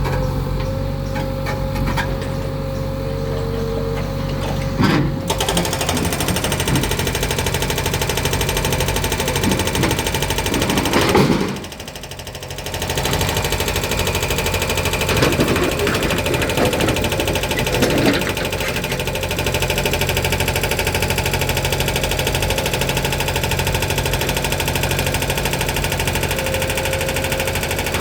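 JCB 3DX backhoe loader's diesel engine running with a fast, rattly rhythm. It picks up about five seconds in, as if put under load, and drops off briefly around twelve seconds. A few short knocks come through over the engine.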